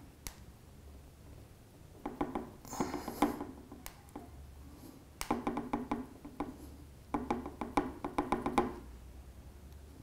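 A steel nail scraped hard across the glass back of a Huawei Nova 3i as a scratch-hardness test: three strokes of a second or more each, each a fast chattering scrape.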